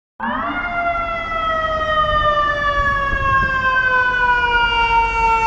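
Fire truck siren in one long wail: it rises sharply in pitch as it starts, then slides slowly downward, over a low rumble of traffic.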